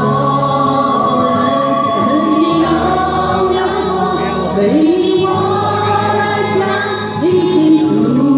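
Amateur mixed choir of men and women singing a Mandarin folk song, with long held notes.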